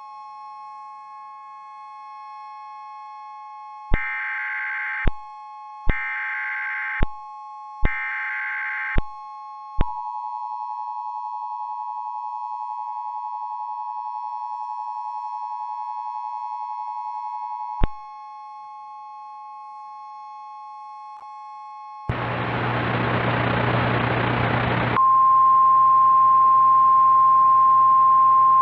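Emergency Alert System tones: over a steady bed of held tones, three one-second bursts of SAME header data sound, each starting and ending with a click, followed by the two-tone EAS attention signal for about eight seconds. Near the end a three-second burst of static gives way to a loud, steady single tone.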